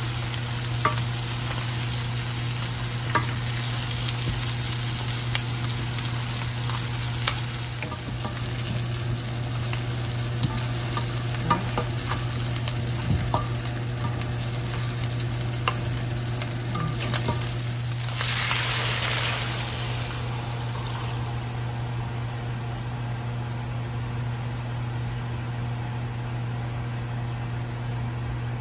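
Pork neck bones sizzling as they brown in a hot stainless steel pan, stirred with a spatula that clicks and scrapes against the metal. About two-thirds through the hiss surges briefly, then settles into a softer bubbling as the meat cooks in liquid, over a steady low hum.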